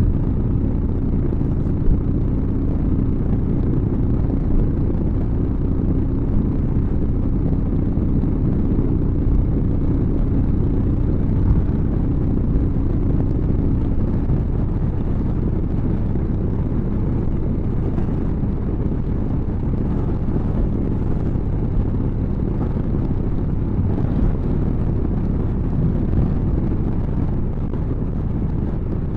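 Motorcycle engine running steadily at cruising speed on an open road, with wind rushing over the microphone.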